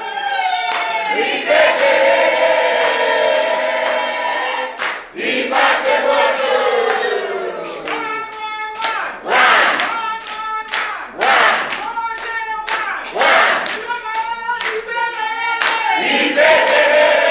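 A group of people singing together in chorus, with hand clapping that grows denser in the second half.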